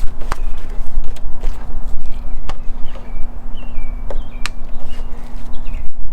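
A few sharp clicks of wire connectors and plastic clips being worked loose under a truck's wheel well, over a steady low rumble and hum. Short bird chirps come and go in the middle.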